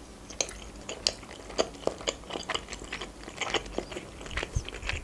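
Chewing a mouthful of cream-sauced fusilli pasta close to the microphone: a run of small irregular mouth clicks, several a second.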